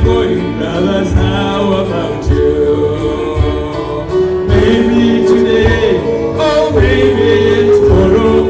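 Gospel choir singing a hymn with instrumental backing, held notes over a steady low beat about once a second.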